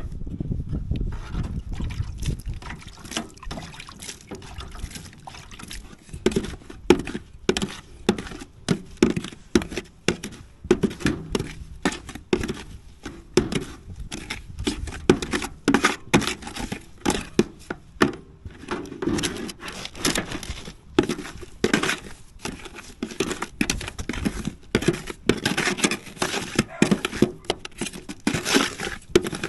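A rapid, irregular run of clicks and knocks, several a second, with a low rumble in the first couple of seconds.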